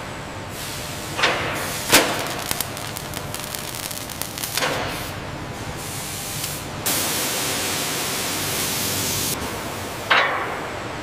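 Factory floor noise: four sharp metal clanks that ring out, the loudest about two seconds in, over a steady background, and a steady hiss that starts suddenly about seven seconds in and stops after about two and a half seconds.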